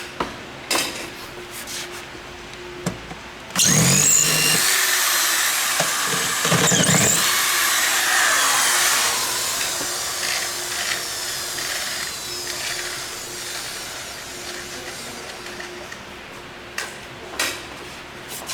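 Power drill working at the flight case's rivet holes. It starts suddenly about four seconds in with a high whine whose pitch slowly falls, then fades over the next dozen seconds. A few clicks and knocks come before it and again near the end.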